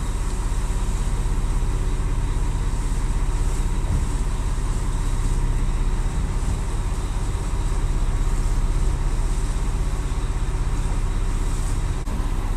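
A boat's engine running with a steady low drone under a constant hiss.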